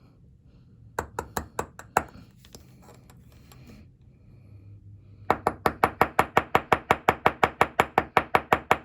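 Small riveting hammer tapping on decorative rivet heads to set them down tight. A few separate taps about a second in, then from about five seconds a fast, even run of light taps, about six a second.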